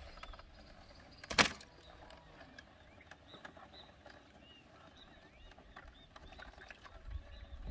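A single sharp knock about a second and a half in, over a quiet background with faint high chirps; a few low thumps come near the end.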